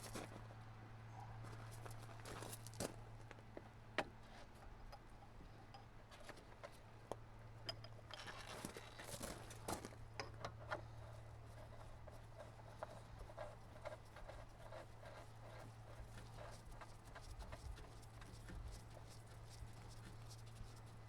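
Scattered light clicks and taps of parts and tools being handled as an excavator component is reassembled by hand, over a steady low hum.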